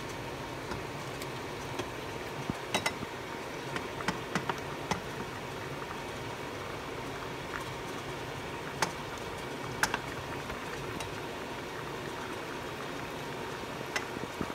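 A wooden spoon knocking and scraping against a stainless steel pot as pieces of salmon are stirred and turned in it, with scattered sharp knocks, most of them about three to five seconds in, two more around nine and ten seconds, and one near the end. Under them runs a steady background hiss.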